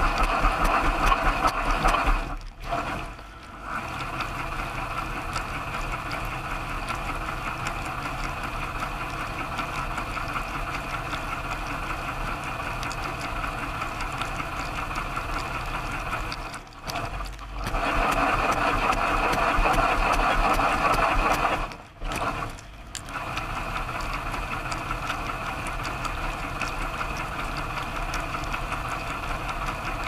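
Dishwasher running its wash cycle, heard from inside the tub: a steady whirring hum of the wash pump with water spraying over the dishes. The sound drops out briefly about two and a half seconds in, again around seventeen seconds and around twenty-two seconds, and is louder at the start and between about eighteen and twenty-two seconds.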